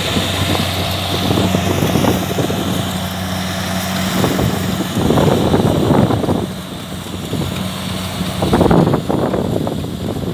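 Farm machine's diesel engine running at a steady speed, with gusts of wind buffeting the microphone; the engine hum drops away near the end.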